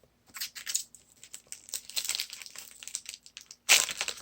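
Crinkling of a trading-card pack's foil wrapper as it is handled and opened, irregular throughout, with a sharply louder burst of crinkling near the end.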